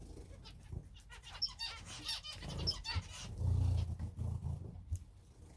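Small cage birds, finches and canaries, chirping and calling with many short high notes in quick succession, over a few low bumps.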